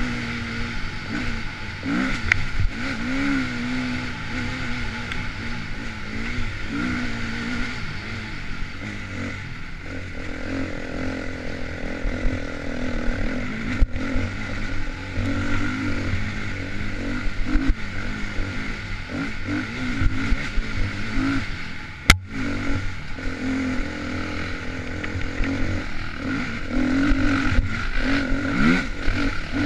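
Dirt bike engine being ridden on an enduro trail, revving up and down as the throttle is worked, with clattering over rough ground. A single sharp knock comes about three quarters of the way through.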